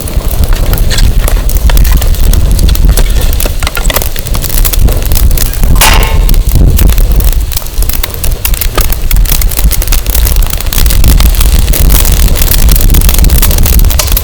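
Wood fire crackling and popping in the wind, with heavy wind buffeting on the microphone making a low rumble. A brief hiss comes about six seconds in.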